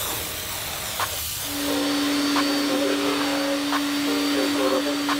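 A cordless drill spinning a brush on a foamed cloth car seat: a steady motor whine with a scrubbing hiss that starts about a second and a half in.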